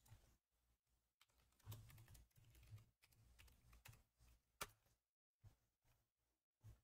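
Faint typing on a computer keyboard: scattered soft key clicks, the sharpest about four and a half seconds in.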